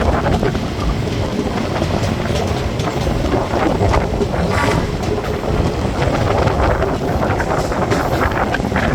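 DEMU (diesel-electric multiple unit) passenger train running along the track: a steady rumble with occasional clacks from the wheels over rail joints.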